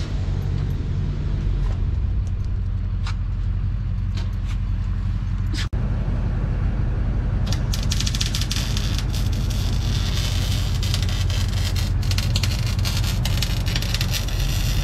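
Electric arc welding on a steel trailer bed, the arc crackling steadily from about halfway through, over a steady low hum. The welds are repairs to cracked welds where the bed joins.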